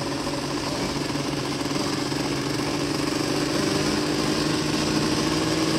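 Dirt bike engine running steadily on the move, its note climbing slowly and getting a little louder.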